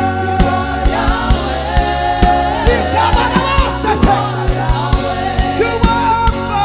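Live gospel worship music: a choir and congregation singing over a band with keyboard, bass and a steady drum beat.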